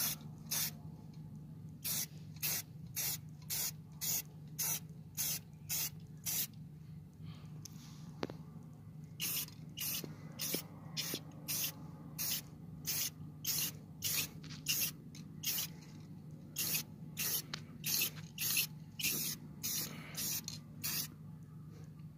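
Aerosol spray paint can sprayed in short hissing bursts, about two a second, pausing for a couple of seconds about a third of the way in, as gloss paint goes onto a steel wheel. A steady low hum runs underneath.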